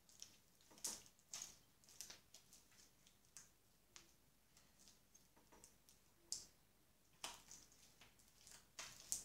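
Faint, irregular sticky clicks and squelches of white glue slime being stretched and kneaded by hand, with a few louder ones about a second in, around six to seven seconds and near the end.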